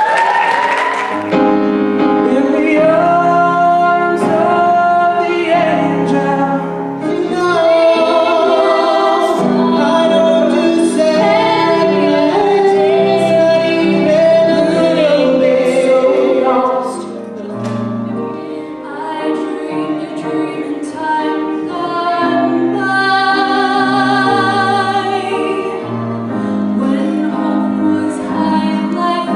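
A woman singing held notes with vibrato over instrumental accompaniment.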